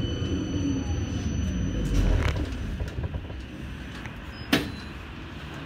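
Vityaz-M 71-931M low-floor tram rumbling along the rails and slowing to a stop, its running noise easing off after about three seconds. A high whine cuts off about two seconds in, and a single sharp click comes a little later.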